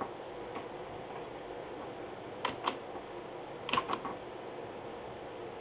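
Two pairs of short sharp clicks, about a second apart, from the controls being pressed to change the slides, over a steady background hum.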